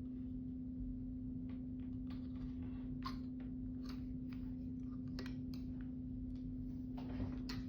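Hair crimping iron clamping and releasing sections of hair, with irregular small clicks and rustles, over a steady low hum.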